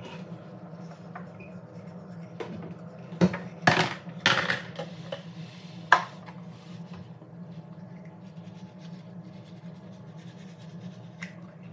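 Toiletries being picked up and set down on a bathroom counter: scattered clicks, knocks and rustles, loudest from about three to six seconds in, over a steady low hum.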